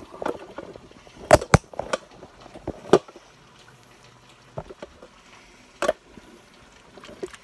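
A spatula stirring salsa, milk and cheese chunks in a ceramic crock-pot insert, with a handful of sharp knocks of the spatula against the crock, the loudest between one and a half and three seconds in and another near six seconds.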